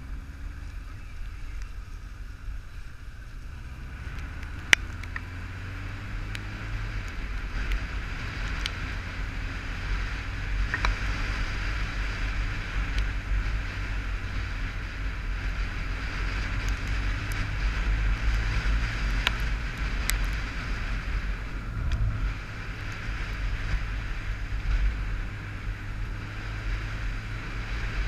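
Honda motorcycle engine running on the move, its pitch rising in the first few seconds as it pulls away, under steady wind noise on the helmet-mounted camera and tyre hiss on a wet road. A few sharp ticks stand out, the loudest about five seconds in.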